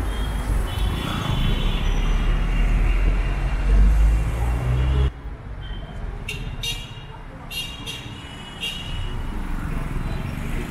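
Urban road traffic under a concrete overpass: vehicles running and passing, with a heavy low rumble that cuts off suddenly about five seconds in. After that the traffic is quieter, and several short high-pitched toots sound between about six and nine seconds in.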